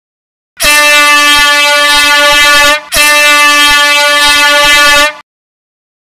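Loud air horn sounding two long, steady blasts of about two seconds each, the second following almost at once after a brief break.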